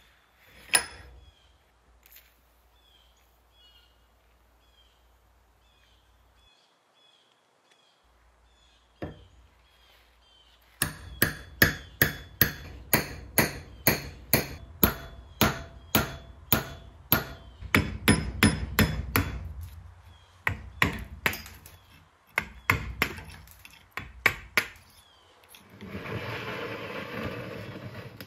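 Hammer striking a steel punch set on a rusted axe head clamped in a bench vise: a single knock about a second in and another a few seconds later, then a long run of sharp metallic blows at about two a second. Near the end, a few seconds of even rushing noise.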